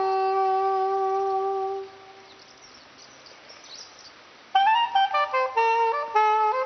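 Background music: a solo wind-instrument melody holds one long note that fades out. After a pause of about two and a half seconds, the melody resumes in quick stepping notes.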